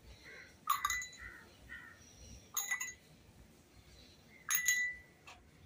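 Small blue pebbles dropped one at a time into a drinking glass of water, each landing with a sharp clink and a brief ring from the glass. Three drops come about two seconds apart.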